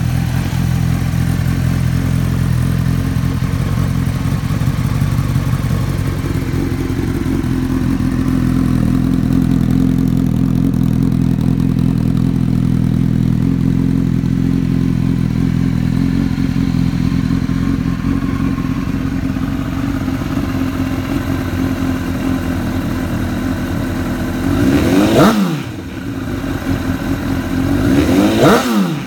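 2007 Honda CBR1000RR's inline-four engine idling steadily through an aftermarket Dan Moto exhaust, then revved twice near the end, each blip rising quickly and dropping back to idle.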